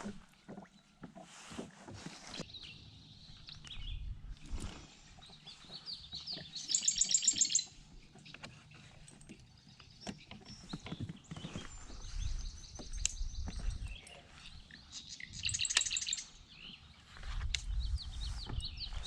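A songbird calling in rapid trills of high notes, loudest about seven seconds in and again near sixteen seconds, with fainter notes between. Low rumbles come and go underneath.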